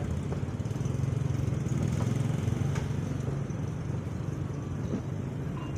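A steady low motor rumble, stronger in the first half, with a few faint clicks.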